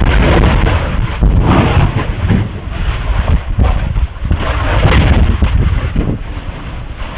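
Roar of lava blasts at a lava flow's ocean entry, swelling and easing in surges every second or two, with heavy wind rumble on the microphone.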